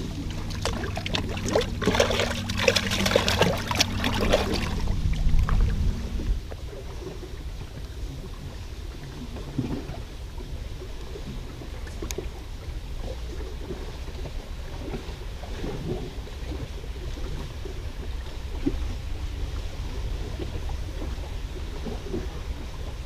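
Outdoor waterside ambience with wind rumbling on the microphone. For the first few seconds there is a low steady hum and a burst of loud rustling and clicking; after that only the wind rumble and faint small sounds remain.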